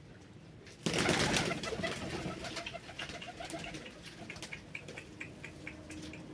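Baku pigeons calling and cooing. A sudden loud rustle comes about a second in, followed by a run of short, evenly spaced high calls.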